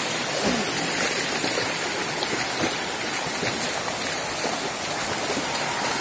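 Shallow rocky hill stream running fast over boulders: a steady wash of water noise.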